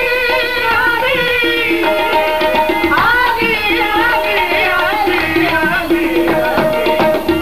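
Live qawwali: a singing voice holds and bends long melismatic notes over a harmonium's held tones, with tabla keeping a steady rhythm.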